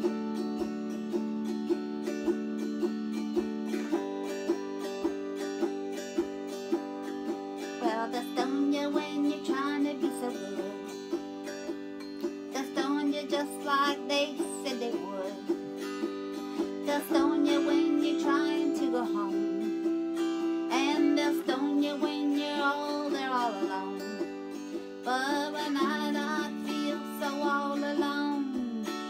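Autoharp strummed in a steady rhythm, playing chords. A woman's singing voice comes in over it about eight seconds in.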